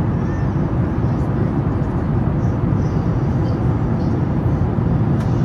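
Steady low cabin noise inside a Boeing 737 MAX 8: the drone of its CFM LEAP-1B engines and the air around the fuselage, heard from a window seat.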